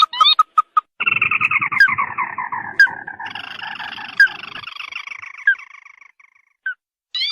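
Ruddy-breasted crake calls played as a bird-lure recording: a few quick rising notes, then about a second in a long, rapid trill that falls in pitch and fades out over some five seconds, with short notes starting again near the end.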